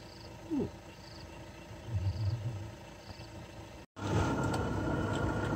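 Outdoor bush ambience with a faint high chirp repeating about once a second. After an abrupt cut about four seconds in, a vehicle engine runs with a low rumble and scattered clicks.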